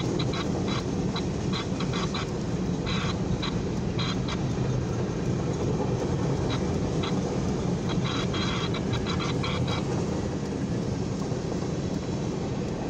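Freight train of covered hopper cars rolling past at a grade crossing: a steady rumble of wheels on rail, with irregular bursts of short clicks and rattles.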